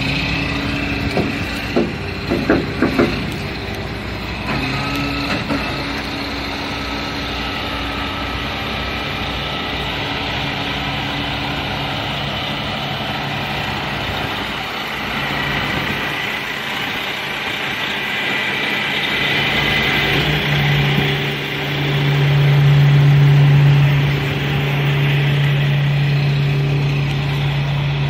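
Hook-lift truck's Detroit Series 60 diesel running and driving its hydraulic wet-kit pump as the hook arm raises, with a few metallic clanks one to three seconds in. A louder steady drone comes in about three quarters of the way through.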